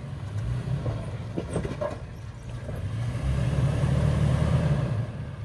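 Off-road 4x4 engine pulling at low speed as the vehicle crawls over rocks, the rumble swelling about three seconds in and easing near the end. A few faint knocks come about a second and a half in.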